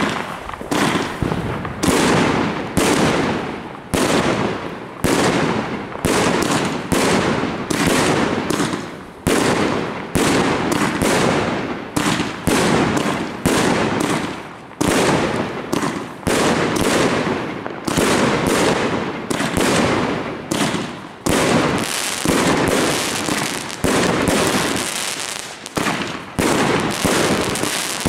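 Kometa Bangkok 36-shot firework cake firing its shots one after another, a little over one a second. Each shot is a sharp bang that fades before the next.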